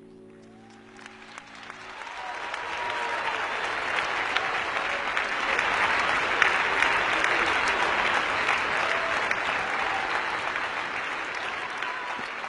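Audience applause in an ice arena, building as a held music chord fades out over the first two seconds, staying loud through the middle and slowly easing off near the end.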